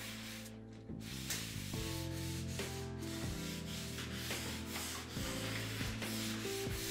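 Background music with a steady beat, over a damp cloth rubbed back and forth across a sanded ash slab to wet its surface.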